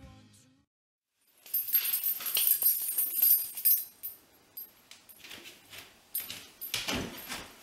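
Background music fades out, and after a brief silence a bunch of keys jangles and clatters as it is dropped, followed by scattered clinks and a few sharp knocks near the end.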